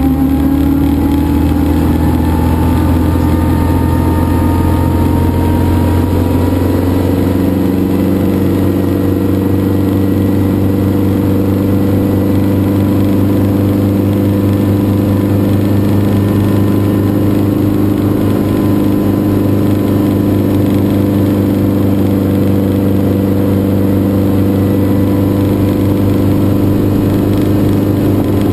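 Schweizer 300 helicopter's piston engine and rotor running, heard from inside the cockpit. The pitch rises over the first several seconds as the engine and rotor speed up, then holds at a steady high run.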